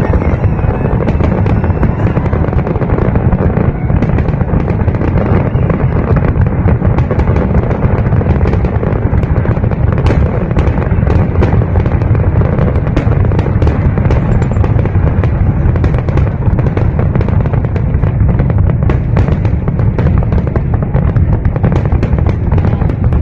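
Fireworks display at full barrage: a continuous wall of low booms with many sharp crackles and pops layered through it.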